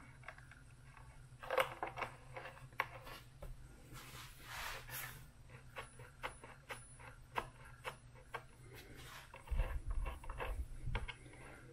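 Faint small clicks and light scraping of hands turning a threaded metal linkage rod into a clevis and ball link on a servo arm, with a few soft low bumps near the end as the hands settle on the foam wing.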